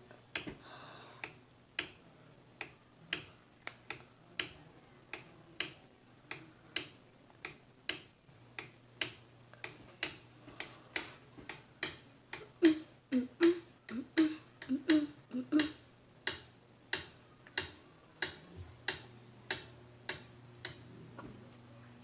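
Hampton Bay Redington IV ceiling fan running on low and clicking over and over, a sharp click about every two-thirds of a second that comes faster in the middle, over a faint motor hum. The clicking dies out near the end.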